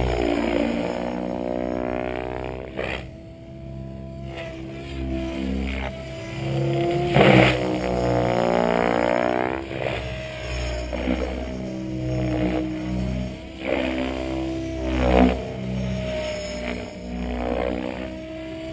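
Mikado Logo 800 electric RC helicopter flying aerobatics. Its main rotor and motor hum slides up and down in pitch as it manoeuvres and passes, broken by loud blade swishes, the strongest about seven seconds in and others near three and fifteen seconds.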